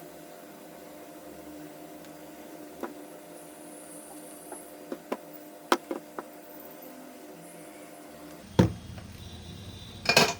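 Small clicks and taps from handling wire and tools while soldering the cable joint, over a steady low hum, with two louder knocks near the end.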